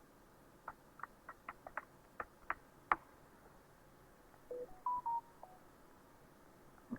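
About nine keyboard keystrokes in the first three seconds, then a short computer alert chime of a few stepped beeps about five seconds in.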